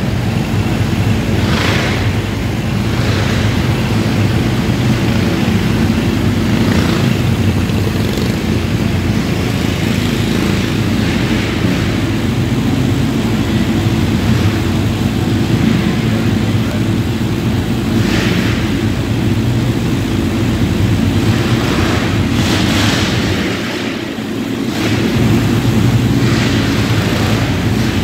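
Several winged dirt-track karts' small engines running at low speed together, a loud steady drone that dips briefly about 24 seconds in.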